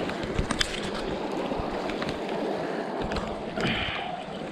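Small mountain creek running steadily, with a few faint clicks and knocks over it.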